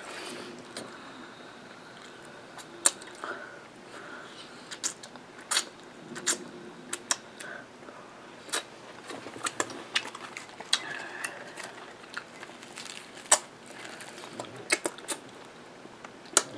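Close-miked eating: chewing curry meat with irregular sharp wet mouth clicks and lip smacks.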